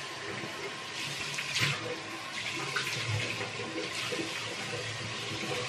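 Water running from a bathroom tap into the sink while a face is washed, with irregular splashing over the steady rush.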